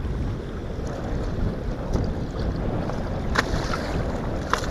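Wind rumbling on the microphone over waves slapping the boat's hull, with two sharp splashes near the end as a hooked musky thrashes at the surface beside the boat.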